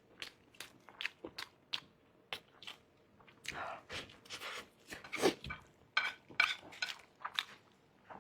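Close-miked eating of spicy fried rice noodles: chewing with many short, wet mouth clicks, and a few longer, louder mouth noises about halfway through.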